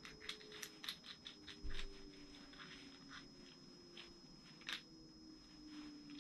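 Irregular light clicks and taps of hand tools being handled, bunched in the first two seconds, with a soft thump about a second and a half in and one more click near the end. A faint steady high-pitched tone runs underneath.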